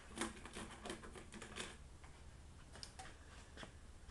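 A quick flurry of light clicks and rattles in the first second and a half, then a few scattered clicks: small hand tools being shifted about while searching for a pair of cleco pliers.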